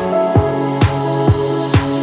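Background music with a steady beat: a bass drum about twice a second and a sharper, brighter hit on every other beat, over held chords.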